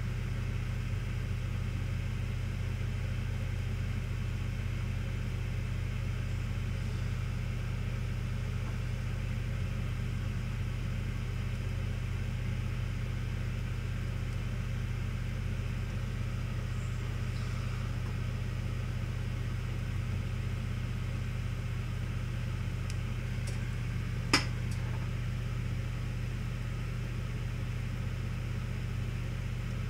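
Steady blowing hum of a hot-air rework station heating a circuit board to desolder a shorted MOSFET, with one sharp click about three-quarters of the way through.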